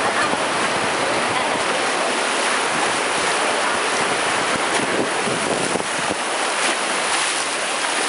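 Whitewater rapids rushing steadily around an inflatable raft: muddy river water churning over rocks in a continuous, even wash.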